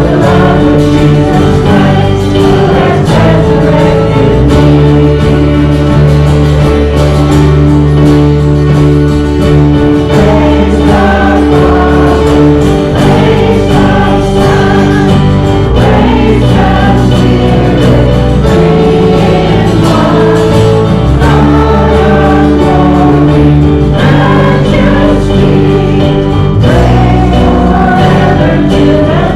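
Congregation singing a gospel hymn together, accompanied by instruments with sustained chords.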